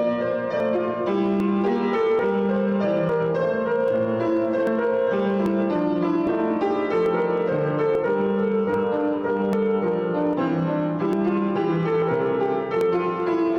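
Piano music played as a postlude, steady sustained chords and a melody moving at a moderate pace.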